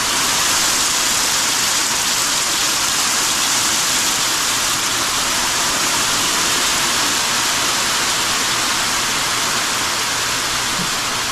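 Heavy rain mixed with small hailstones pelting down in a steady, dense hiss.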